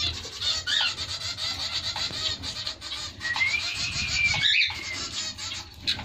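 Many small cage birds chirping fast and continuously. About three seconds in, one long, level whistle runs for over a second and ends in a sharp rising note.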